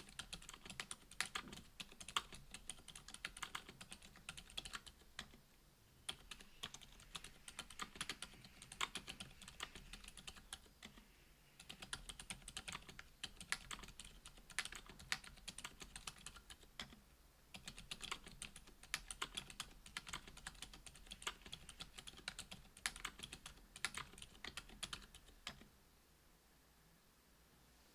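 Steady fast typing on a Duck Orion V2.5 mechanical keyboard with lubed Gazzew U4 Boba 62g silent tactile switches, GMK keycaps and an FR-4 plate: dense runs of soft keystrokes with brief pauses between bursts, stopping shortly before the end.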